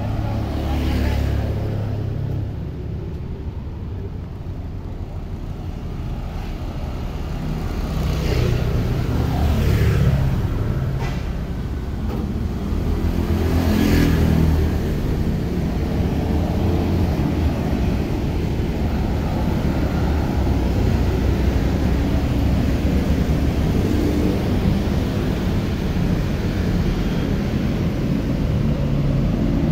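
Urban street traffic: motor scooters and cars passing with their engines running, a steady low rumble with a few louder moments as vehicles go by.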